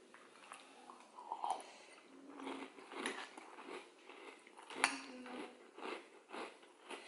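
A metal spoon clinking and scraping in a ceramic bowl while crunchy cereal is chewed, a run of irregular crunches and clicks. A sharp clink about five seconds in is the loudest.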